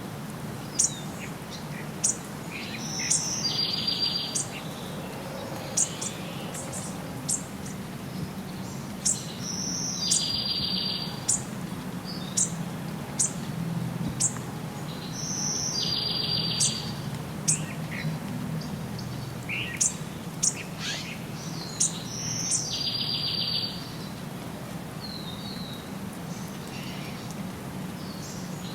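Several birds chirping and singing. One bird repeats a short song about every six or seven seconds: a high note followed by a fast buzzy trill. A steady low background noise runs under the calls.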